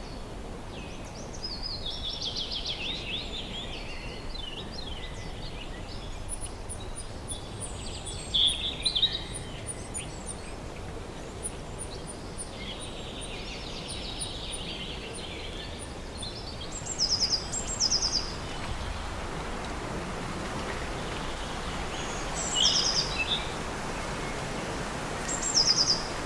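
Songbirds singing in spring: short phrases of quick repeated notes from several birds, with a thin run of very high notes in the middle. Underneath is a steady outdoor hiss that swells somewhat in the second half.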